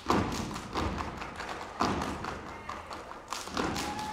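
A step team stepping in unison: heavy group foot stomps on the stage floor about once a second, with quicker, sharper claps and slaps between them in a steady rhythm. The loudest stomp lands right at the start.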